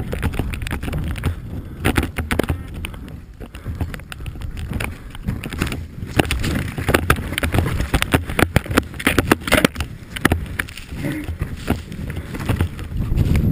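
Snowmobile ride through a helmet-mounted microphone: a low rumble under irregular sharp knocks, crackles and wind buffeting, growing busier about halfway through.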